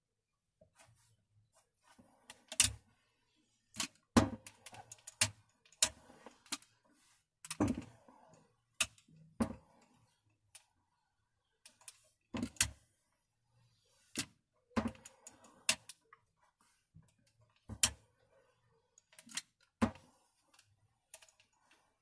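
Clothes iron knocking and clicking as it is set down and pushed across a padded ironing board while pressing a patchwork block, with irregular sharp knocks and softer handling noise between them.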